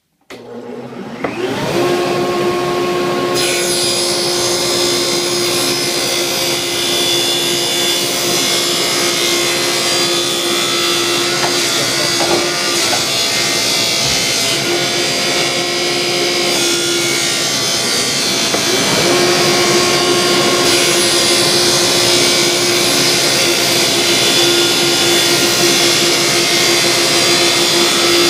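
Table saw starting up and coming to speed within a couple of seconds, then running steadily as a 2x4 is ripped lengthwise into 3-inch strips. Its hum dips and climbs back once, a little past halfway.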